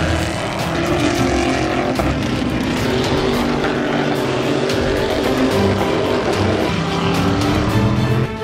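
Stock Car Brasil race cars' V8 engines running hard at speed, rising and falling in pitch as they pass through corners, with background music mixed in.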